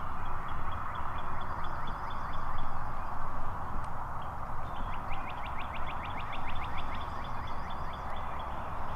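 Small birds singing rapid trills of short high notes, one at the start and a quicker, louder run of down-slurred notes about five seconds in, over a steady background hiss with a low rumble.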